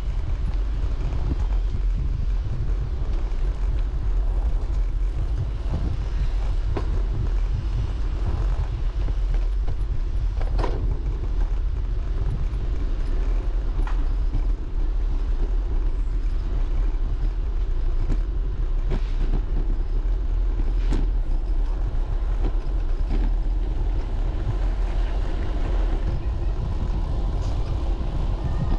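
Steady low rumble of wind and road noise while cycling through city traffic, with a few brief clicks along the way.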